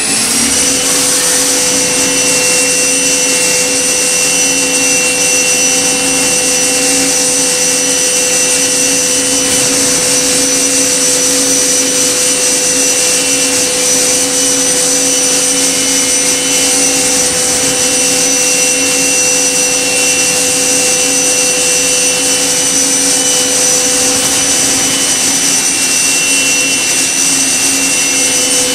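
Okuma MB-5000HII horizontal machining center spindle finishing its spin-up about half a second in, then running at a steady high speed: a steady multi-pitched whine over a whirring hiss.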